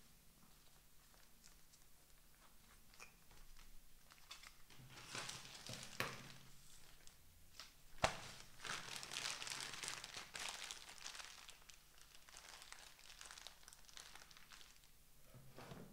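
Paper packaging being torn and crumpled by hand: quiet for the first few seconds, then dense crinkling for most of the rest, with two sharp knocks about six and eight seconds in, the second the loudest.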